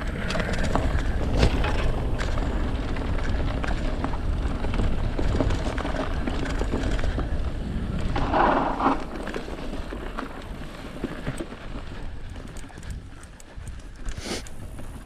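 Mountain bike running fast down a dirt forest trail: wind rumbling on the microphone, tyres on dirt and the bike rattling over bumps, with many sharp knocks. It gets quieter in the last few seconds.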